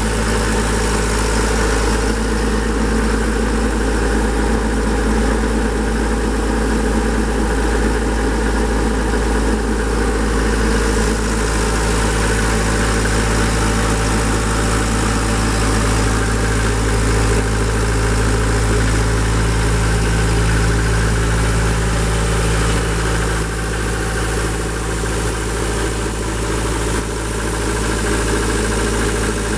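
Atlas Copco XAS 136 DD portable air compressor's Deutz turbo diesel engine running steadily.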